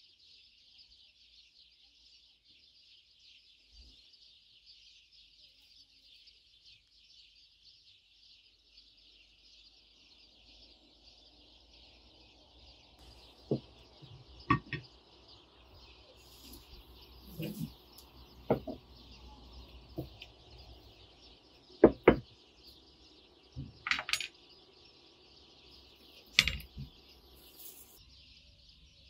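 Plates, a glass serving dish and serving tongs clinking and knocking on a table in irregular sharp taps, starting about halfway through, over steady background bird chirping.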